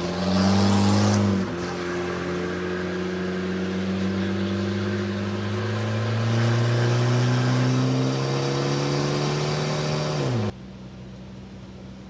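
Volvo car engine accelerating through the gears, its pitch rising. It drops once at a shift about a second and a half in, then climbs slowly and steadily in the next gear. It cuts off suddenly near the end, leaving a quieter steady hum.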